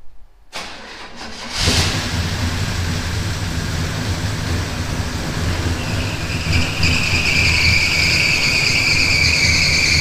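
Freshly rebuilt small-block Chevy 350 V8 in a 1977 Chevy C10 cranking and catching about a second and a half in, then running. About six seconds in, a steady high squeal from the drive belts joins the engine: squeaky belts.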